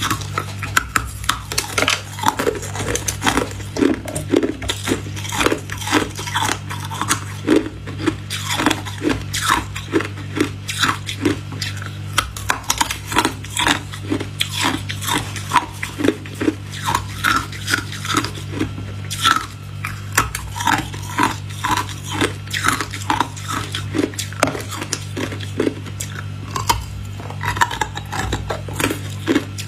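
Hard frozen ice pop bitten and crunched between the teeth close to the microphone: a rapid run of sharp, brittle crunches, about two or three a second, over a steady low hum.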